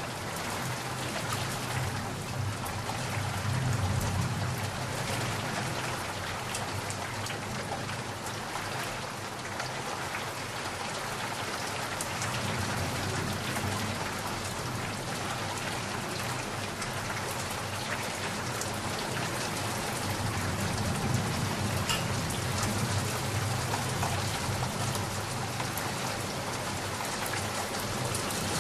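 Steady rain, an even hiss with single drops ticking through it. A low rumble swells twice, a few seconds in and again past the middle.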